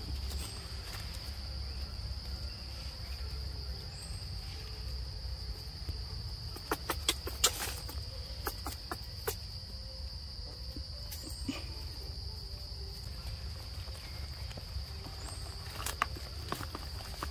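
Steady high-pitched insect drone throughout, with scattered sharp clicks and crackles of dry leaves and twigs, several in a cluster about seven seconds in and another near the end.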